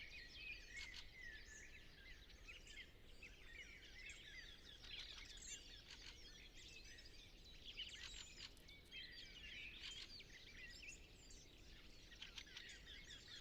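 A faint chorus of many small songbirds, with high chirps and twittering trills overlapping throughout.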